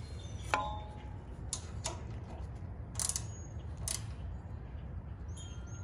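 Socket wrench ratchet clicking in a few short, irregular bursts as the generator's oil drain plug is tightened back in.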